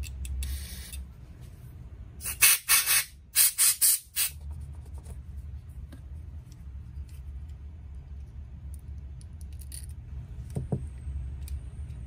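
Aerosol carburetor cleaner sprayed through a thin straw into the chainsaw carburetor's ports in short hissing blasts: one near the start, a longer one about two seconds in, then three quick ones just before four seconds. It is flushing grime out of the passages.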